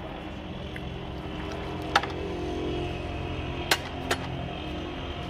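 A long steel ladle knocks sharply three times against a large aluminium cooking pot of beef stock, over a steady low engine-like hum.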